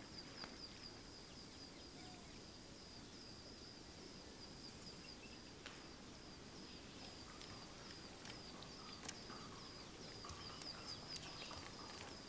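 Faint outdoor ambience: a steady high chirping repeating about three times a second, with a few soft clicks of footsteps near the end.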